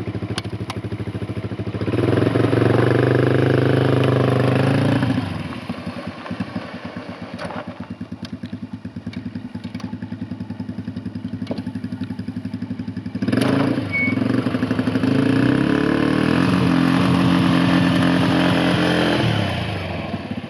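Polaris Sportsman 90 ATV's small engine running: it revs up and holds for a few seconds about two seconds in, drops back to a pulsing idle, then revs up again from about two-thirds of the way through until near the end as the ATV is ridden.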